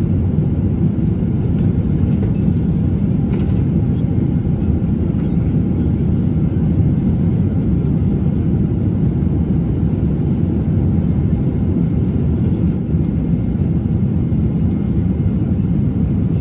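Steady cabin noise inside a Boeing 777-200ER airliner in flight: an even, low rush of engines and airflow.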